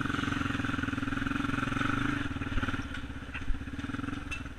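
ATV engine running steadily, then easing off about two seconds in and dropping to a slow, evenly pulsing low-rpm beat. Two short knocks sound near the middle.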